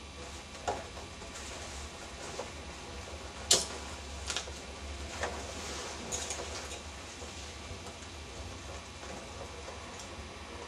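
A long umbrella and its hands-free holder being handled: scattered clicks and light knocks, the sharpest about three and a half seconds in, over a steady low hum.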